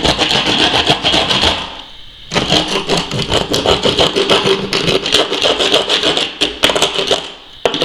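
Hand grout saw rasping back and forth in quick strokes along the grout joint around a bathtub, breaking up the old grout. It pauses briefly about two seconds in and again near the end.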